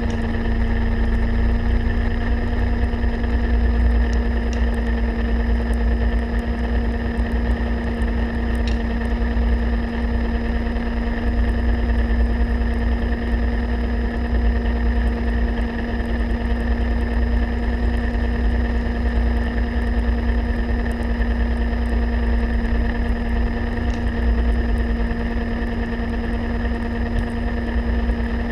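Electric motor of an underwater scooter (diver propulsion vehicle) running at a constant speed underwater: a steady hum over a deep rush of water.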